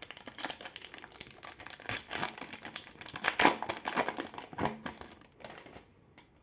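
Foil trading-card pack crinkling and crackling as it is torn open at its crimped seal and the cards are pulled out; the crinkling stops shortly before the end.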